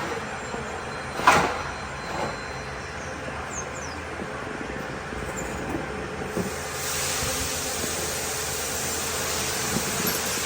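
Engine running steadily, with a sharp knock about a second in and a hiss that comes in about seven seconds in.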